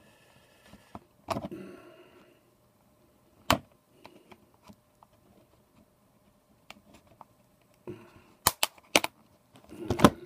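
Plastic clicks and snaps from an HP Slate 7 tablet's clip-together case as a Teflon guitar pick pries it open and its clips pop loose: one snap about a second and a half in, another about three and a half seconds in, and a quick run of several near the end.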